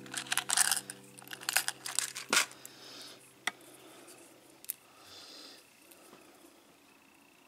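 Handling noise: a flurry of sharp clicks and rattles from a clear plastic needle holder being handled as a yarn needle is taken out, dense for the first two and a half seconds. A few single clicks and soft rustling follow as the needle is worked through the crocheted piece.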